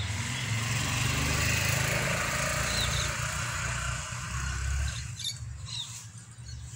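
A rushing noise with a low rumble swells and then fades about five seconds in, with a few short bird chirps over it, more of them near the end.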